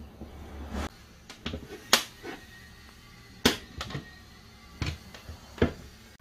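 Iron C-clamps knocking and clinking against the workbench and each other as they are set on and screwed tight over wooden knife-handle scales. There are about seven separate knocks, the sharpest about two and three and a half seconds in.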